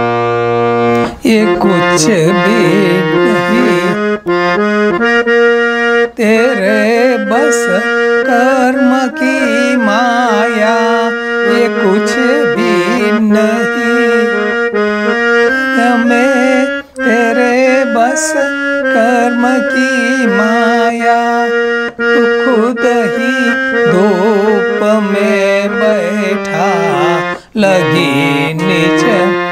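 Harmonium playing a bhajan melody: sustained reed drones and chords under a quick, ornamented right-hand line. The sound breaks off briefly a few times.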